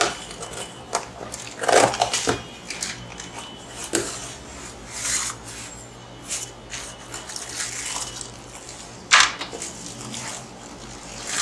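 Cardboard shipping carton being opened by hand: packing tape scraped open with a pen, flaps pulled back and bubble wrap rustling, in irregular crinkling and scraping bursts.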